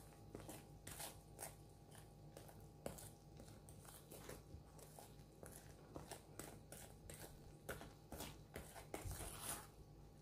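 Wire whisk stirring thick cake batter of flour, sugar and blended carrot in a stainless steel bowl: faint scraping strokes of the wires against the bowl, about two a second.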